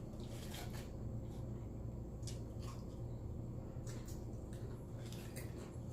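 Close-up chewing and mouth sounds while eating: soft, wet clicks scattered through, over a steady low hum.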